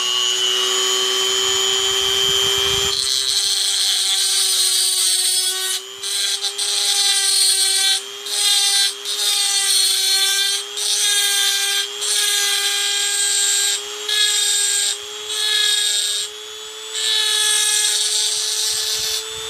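Rotary tool fitted with a cutting bit, its motor a steady high whine; about three seconds in the bit starts grinding into the die-cast zinc-alloy (Zamak) body of a toy car, the grinding breaking off and starting again every second or so.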